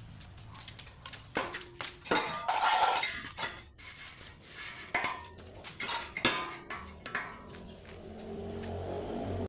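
Metal parts clanking and clinking together in irregular knocks, some of them ringing, with a steadier low rumble rising near the end.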